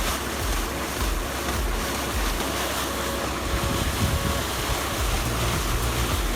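Steady rushing noise with an uneven low rumble underneath, typical of heavy chipping or shredding machinery running.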